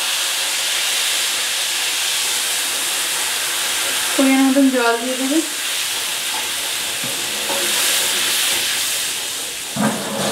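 Hot mustard oil and fried ground spices sizzling and hissing loudly and steadily in a karahi as water is poured into the pan from a cup, throwing up steam.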